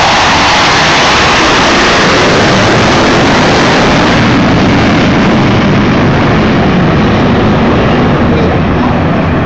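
Loud, steady jet roar from Blue Angels F/A-18 Hornet jets flying over, the higher part of the roar easing off a little after about four seconds.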